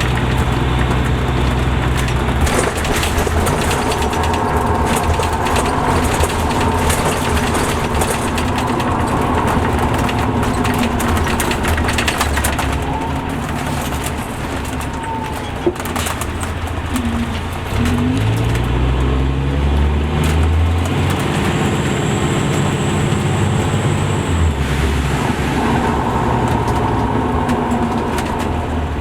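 Caterpillar C13 diesel engine of a 2005 MCI D4500CL coach running steadily. About 17 seconds in, the engine note climbs in pitch.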